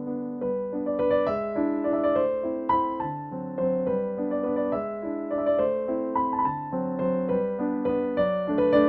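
Background music: a gentle piano melody, notes struck one after another with chords beneath.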